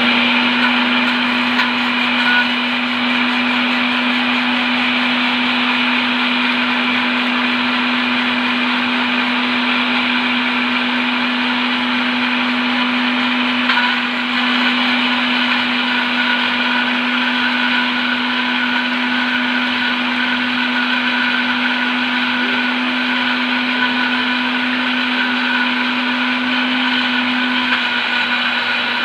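Countertop jug blender running steadily at one speed, whipping eggs in the jar; its motor gives a constant hum with a steady pitch.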